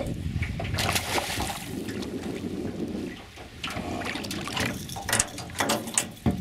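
Water splashing and sloshing at the side of a boat as a fish is netted, with wind rumbling on the microphone; a few sharper splashes come near the end.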